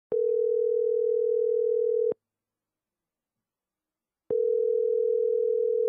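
Telephone ringback tone, the ringing a caller hears while waiting for an answer: a steady tone held for about two seconds, a two-second silence, then the same tone again.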